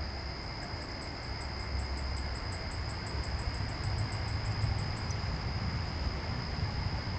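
Backyard ambience: a steady, high-pitched insect trill under a low rumble. A faint, fast ticking, about seven ticks a second, runs alongside and stops about five seconds in.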